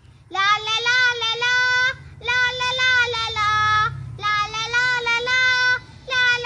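A young boy singing solo, in four phrases of long held notes with short breaths between them.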